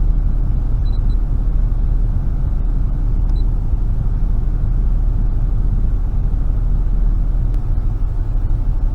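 Car engine idling: a steady low rumble with no change in speed.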